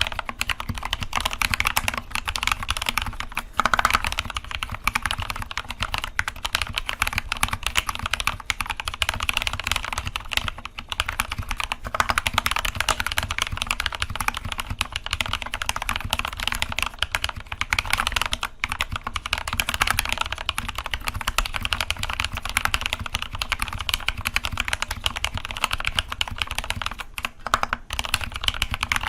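Fast, continuous typing on a mechanical keyboard with stem-lubed Gateron Red linear switches and stock stabilisers, a dense run of key clacks with no pauses.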